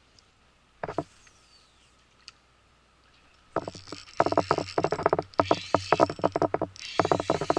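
A short swish about a second in, then from about three and a half seconds a spinning reel being cranked: a fast, steady run of sharp clicks as a topwater lure is retrieved.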